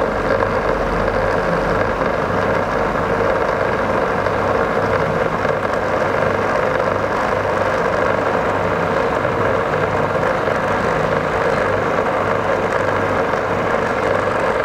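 Large electric blender motor running at a steady whine as it whips garlic sauce, with oil poured in little by little to emulsify it into a thick cream.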